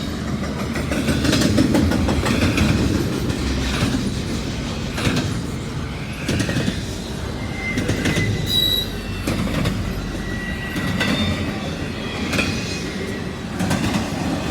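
Intermodal freight train cars rolling past, their wheels clacking over rail joints with a steady rumble. Brief high-pitched wheel squeals come twice, about halfway through and again a few seconds later.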